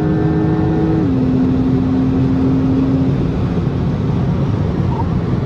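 Porsche 911 Turbo S heard from inside the cabin at speed. The twin-turbo flat-six's steady engine note steps down in pitch about a second in, then fades under constant tyre and wind noise.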